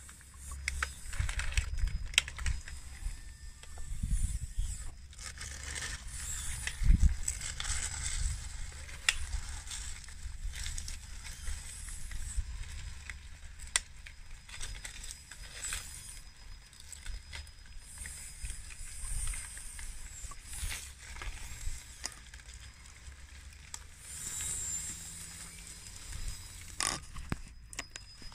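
Radio-controlled D6T bulldozer model on 3D-printed plastic tracks pushing into a pile of gravel: loose stones crunching and rattling under the blade and tracks, with many small clicks.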